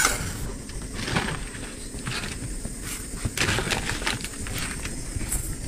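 A plastic sack rustling and crinkling in irregular bursts as it is handled and opened by hand.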